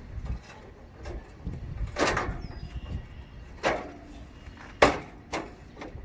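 Knocks and clunks of work on an air-conditioner condenser unit as the new fan motor assembly is set down around the lip of the top panel. There are about five separate knocks, the loudest just before the five-second mark, over a low rumble.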